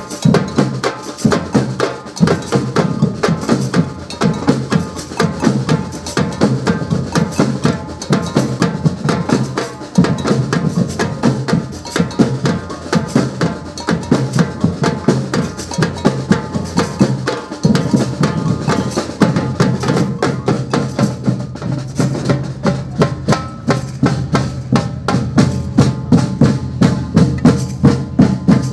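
Samba drum band playing together: big striped surdo bass drums and smaller drums struck with sticks in a steady, dense rhythm.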